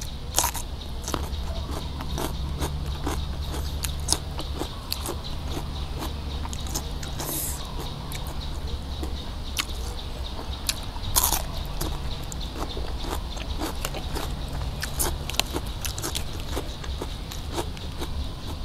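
Close-miked crunching and chewing of crisp raw vegetables: many small sharp crackles throughout, with louder bites about half a second and about 11 seconds in.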